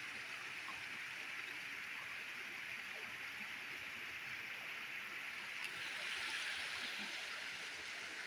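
Steady rushing of water flowing in a shallow irrigation canal, a little louder about six seconds in.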